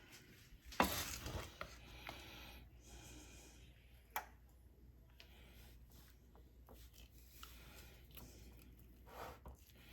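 Hands packing cornbread stuffing into a raw turkey: faint rustling and squishing with a few soft knocks, the sharpest about a second in and again about four seconds in.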